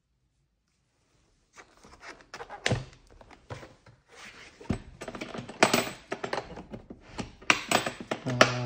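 Handling noises from an airsoft pistol and its presentation case: a run of clicks, taps and thunks that starts about a second and a half in, with several louder knocks as pieces are moved and set down.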